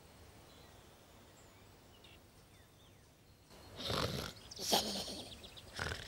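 Cartoon snoring sound effect for a sleeping hare. After about three and a half seconds of near quiet, three loud snores come in the last two seconds or so.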